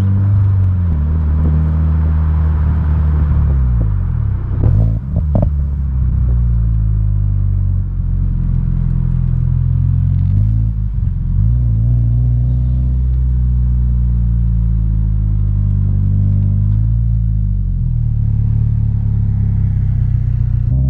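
Engine and exhaust of a 2022 Subaru BRZ, its 2.4-litre flat-four breathing through an Invidia N1 cat-back exhaust, under way. The note falls and rises several times as the car slows and shifts. A few sharp pops come about five seconds in.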